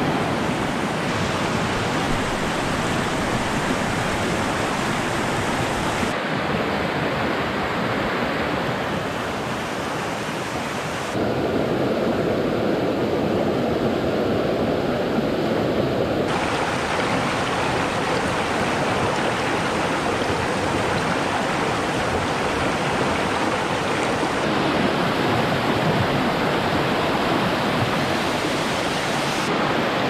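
A mountain stream swollen by typhoon rain rushing over rocks: a loud, steady wash of water. Its tone shifts abruptly a few times, about six, eleven, sixteen and twenty-five seconds in.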